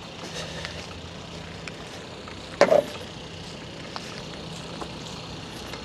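Truck engine idling steadily, with one short, loud sound about two and a half seconds in.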